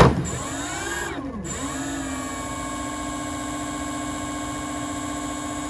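Large brushless outrunner electric motor spinning with no propeller on 44 volts. It starts with a sharp click, its whine rises, dips about a second and a half in, then climbs again and holds a steady high pitch, with a thin high steady tone above it.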